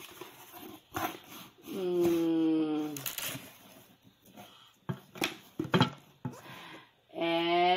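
A cardboard shipping box is handled, with a few scattered knocks and scrapes. A woman's drawn-out wordless vocal sound is heard twice: a held tone a couple of seconds in, and another near the end that rises slowly in pitch.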